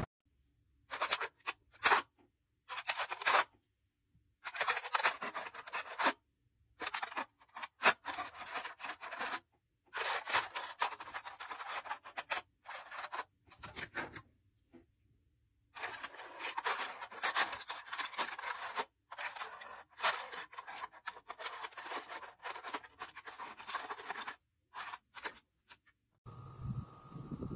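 Thin aluminium foil lid on a container being cut and scratched open, crinkling in short scratchy bursts with silent gaps between them. Near the end a different, steadier sound takes over.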